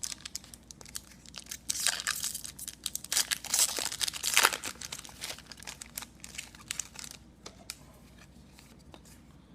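A plastic wrapper on a pack of 2015-16 Upper Deck SP Authentic hockey cards being torn open and crinkled, loudest about four seconds in, followed by lighter clicks and rustling as the cards are handled.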